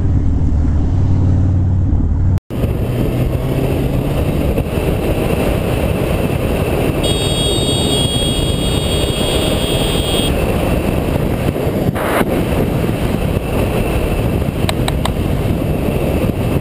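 Motorcycle riding at speed, recorded from the rider's helmet camera: engine running under a steady rush of wind noise. A little over two seconds in, the sound cuts from a deeper engine drone to a ride where the wind rush dominates.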